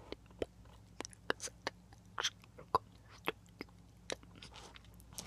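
Close-miked mouth sounds of inaudible ASMR whispering: wet lip smacks and tongue clicks, irregular, two or three a second, some with a short breathy whisper.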